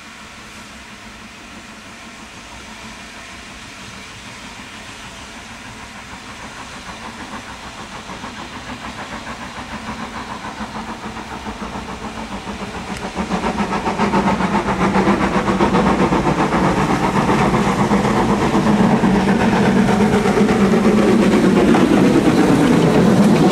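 Steam locomotive hauling a train of vans approaches and passes close by. Its sound grows steadily louder and becomes loud about halfway through as the engine and vans go by.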